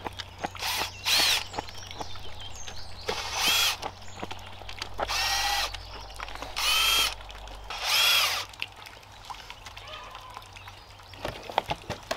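Cordless drill-driver backing screws out of wooden formwork panels in about six short runs, its motor whine rising and falling in pitch with each run. Near the end come a few light knocks as a panel is pulled free.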